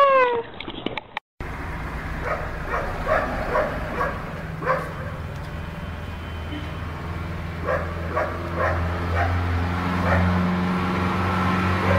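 A dog gives a yowling howl at a water spray bottle; it falls in pitch and is cut off about half a second in. After a brief gap comes a steady low hum, with short high chirps scattered through it.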